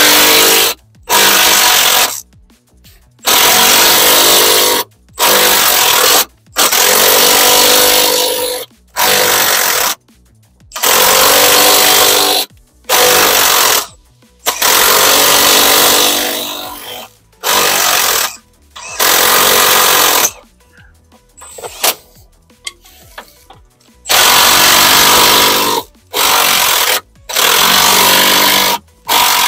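Cordless impact wrench hammering in repeated short bursts of one to two seconds, with brief pauses between them and a longer pause about three quarters through, as a seized undertray bolt is worked back and forth a little at a time so that its thread doesn't snap.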